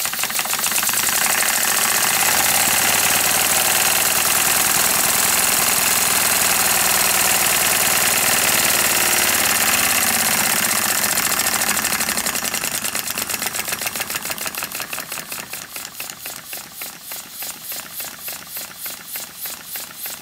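Homemade twin oscillating-cylinder model steam engine running on compressed air: a fast, steady hissing chuff of exhaust from the two cylinders. After about twelve seconds it eases off into quieter, separate puffs.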